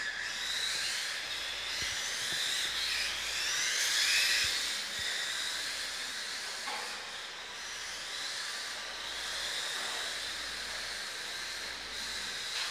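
Several electric radio-controlled cars running on a carpet track, their motors whining high and gliding up and down in pitch as they speed up and slow down through the corners.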